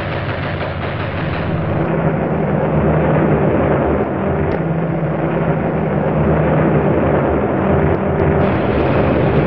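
Steady roar of engines with a low, even drone underneath, from an old film soundtrack.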